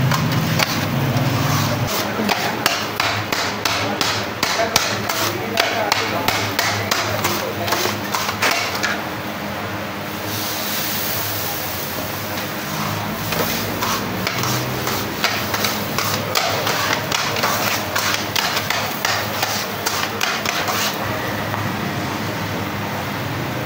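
Metal spatula blades chopping chicken on a flat griddle: rapid clattering metal-on-metal strikes, easing off for a few seconds midway and then starting again.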